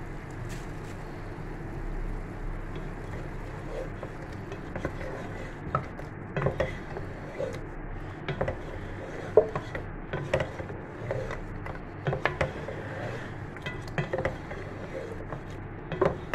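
A spatula stirring mutton and yogurt in a non-stick wok, scraping and knocking irregularly against the pan from about four seconds in, over steady sizzling.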